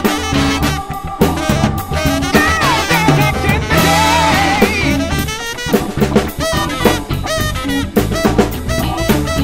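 Live drum kit played along with a funk recording that has a horn section and bass: steady snare, kick and cymbal strokes over the brass lines.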